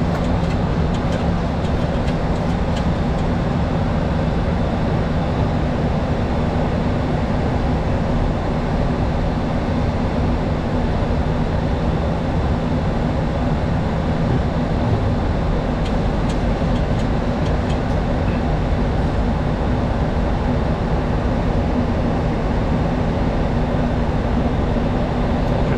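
Steady cabin noise on a Boeing 737-800 flight deck in flight: a constant rush of airflow and engine drone with a low steady hum underneath.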